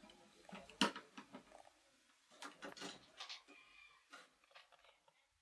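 Plastic wall switch being handled and pressed onto its surface-mounted box: irregular clicks and knocks, the sharpest about a second in, then a cluster of them between two and three and a half seconds in.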